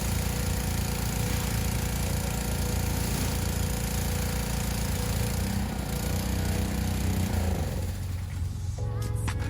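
A car engine running steadily with a strong low hum; the higher hiss eases about eight seconds in.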